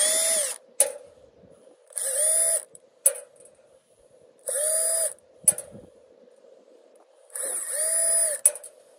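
Cordless drill-driver backing out the Torx screws from an angle grinder's gear-head housing, in four short bursts. Each burst winds up, runs briefly and winds down, with small clicks in between.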